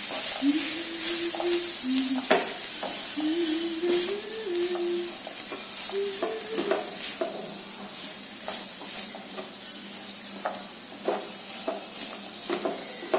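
Wooden spatula stirring and scraping peas and mashed potato in a black kadai, with irregular taps and scrapes against the pan over a steady light sizzle of frying; the taps come more often near the end.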